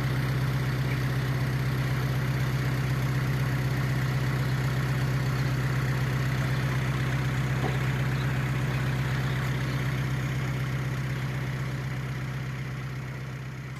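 Narrowboat's inboard diesel engine idling steadily, running again after being repaired from a breakdown; it fades out over the last few seconds.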